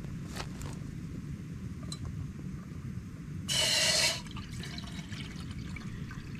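Water being poured into a cooking pot on a methylated-spirit camping stove, with one short louder burst about three and a half seconds in, over a steady low rumble.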